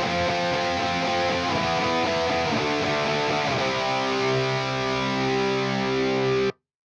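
Distorted electric guitar playing a rock riff through the ML Sound Lab ML800 amp-sim plugin: a high-gain Marshall JCM800-style tone with a drive in front and extra mids. A few chord changes, then a last chord rings and cuts off abruptly about six and a half seconds in.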